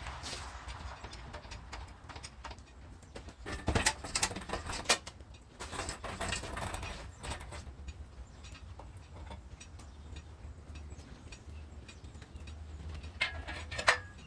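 Metal clanks and knocks from pulling the engine out of a truck, with a cluster of sharp knocks about four to five seconds in and another near the end, over a steady low rumble.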